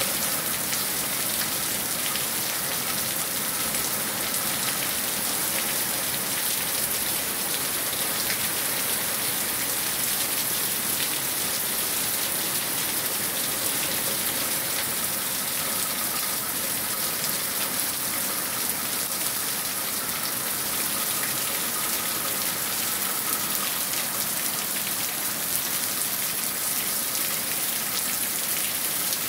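Steady downpour of rain falling on broad garden leaves, with runoff pouring in streams from a roof edge; an even, unbroken hiss.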